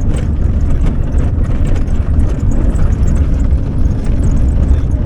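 Steady low rumble of a campervan driving, heard from inside the cabin, with faint scattered ticks over a rough road surface.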